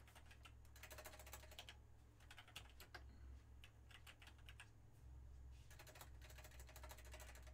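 Faint typing on a computer keyboard in four short bursts of rapid key clicks, over a low steady hum.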